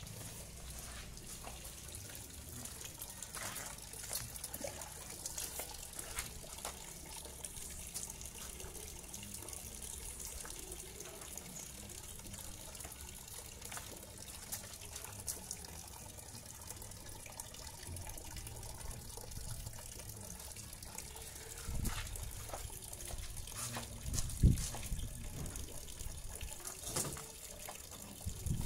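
Water trickling and splashing as a motorbike is washed by hand, with scattered small clicks and a few dull knocks in the last several seconds, the loudest about three-quarters of the way through.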